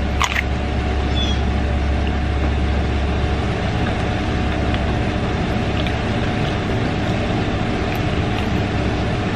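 A steady machine-like hum and rush of noise with a few faint steady tones. Its deepest rumble drops away about three and a half seconds in.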